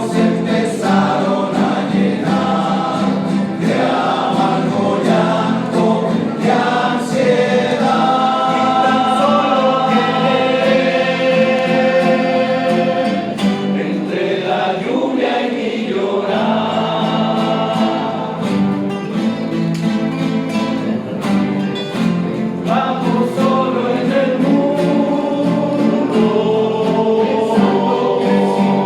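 A rondalla sings a slow romantic song in group vocal harmony, with guitars plucking an accompaniment underneath.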